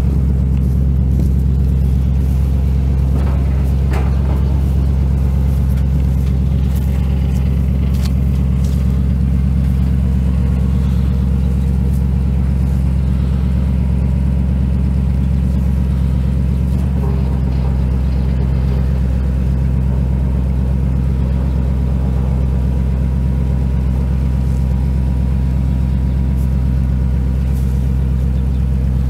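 A 1977 Chevrolet 30 pickup's 350 cubic-inch V8 gas engine running at a steady idle, with a deep, even rumble that does not change pitch.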